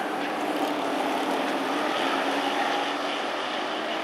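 Super Pro race trucks' engines running hard at speed, several at once, a steady drone whose pitch shifts slightly as they go by.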